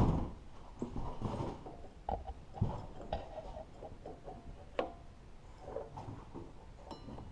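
Rusty metal go-kart clutch parts being handled by hand: scattered light knocks and clinks, the loudest right at the start, with a few sharp clicks after.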